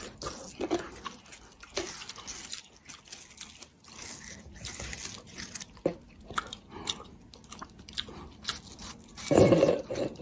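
Juicy crunching and chewing as a cat and a person bite into a slice of watermelon: a run of short, crisp bites, with a louder burst near the end.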